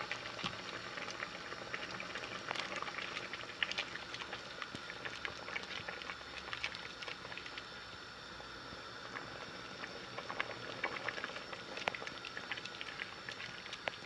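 Pot of cornflour-thickened chicken and sweetcorn soup simmering on the heat, a steady bubbling with many small pops and crackles.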